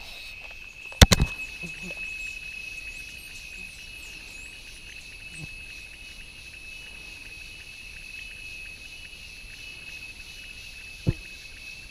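A steady, high insect drone, a cricket-like trill. A sharp loud knock comes about a second in and a smaller one near the end, with faint bird chirps early on.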